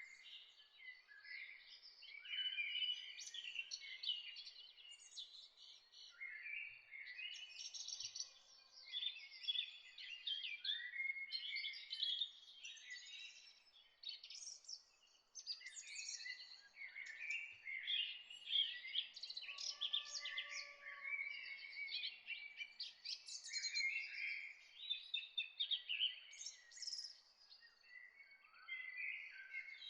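Several songbirds singing at once, a busy, overlapping chorus of chirps, twitters and trills with no pause.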